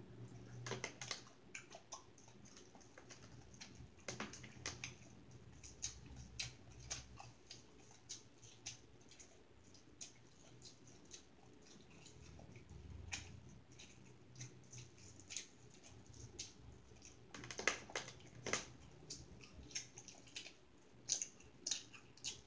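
Faint sounds of someone eating: irregular soft clicks and smacks, some coming in quick bunches.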